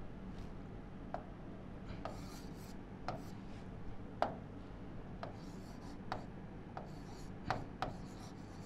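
Pen or stylus writing on an interactive display screen: about ten short sharp taps as the tip touches down, with faint scratchy stretches as it drags across the glass. The loudest tap comes a little over four seconds in, and a low steady hum runs underneath.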